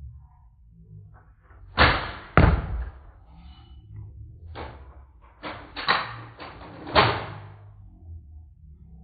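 Nerf foam-dart blasters firing: a series of about seven sharp thumps and clacks, two loud ones about two seconds in and another cluster around six to seven seconds.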